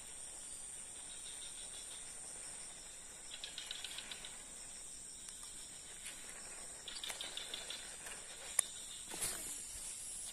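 Steady high-pitched drone of insects, with a short rapid chirping call that comes twice, a few seconds apart. There are a couple of sharp clicks near the end.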